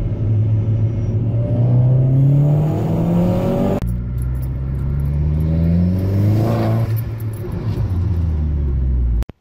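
Corsa VXR's 1.6-litre turbocharged four-cylinder engine, heard from inside the cabin, revved up under throttle twice: the pitch climbs steadily, breaks off sharply a little under four seconds in, climbs again and then falls back to a steady run.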